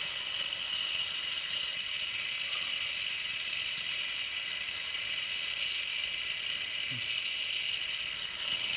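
Gas torch flame hissing steadily as it heats a steel leaf spring eye to melt the old rubber bush out.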